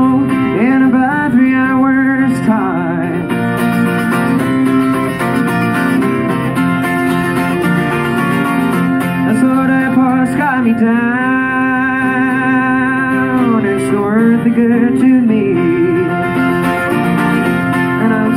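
A man singing with a wavering, held voice over his own strummed twelve-string acoustic guitar, a Yamaha, in a solo folk performance.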